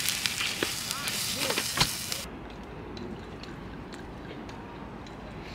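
Pork-wrapped leek skewers sizzling over charcoal on a small grill, a loud hiss with crackling pops as fat drips onto the coals. The sizzle cuts off a little over two seconds in, leaving quieter surroundings with a few faint light clicks.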